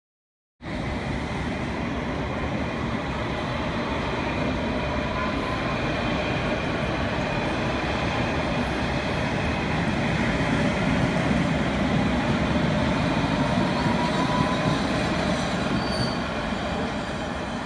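London Underground S Stock train running along a station platform: a steady rumble of wheels on rail with a faint squeal and, twice, a faint rising whine. It starts suddenly just under a second in and grows louder until near the end.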